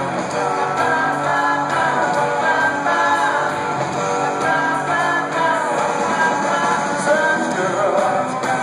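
Live rock band playing a 1960s pop-rock song: sung vocals over electric guitar, keyboards and drums, heard from the audience through a camera microphone.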